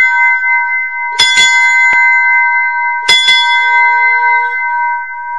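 A bell struck in quick double strokes: one pair about a second in and another about two seconds later, with a single stroke between them. The bell rings on with a clear, steady tone after each strike.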